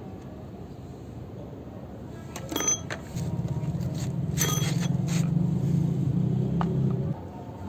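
Clicks and knocks of hard plastic toy steering wheel parts being handled and fitted together, with a steady low hum from about three seconds to seven seconds in.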